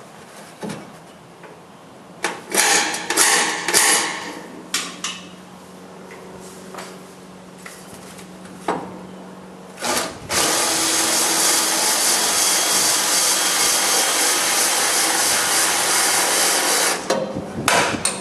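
Cordless drill boring into the steel of a car's inner body panel, running steadily for about seven seconds from about ten seconds in. Before that come a few short knocks and scrapes of metal being handled.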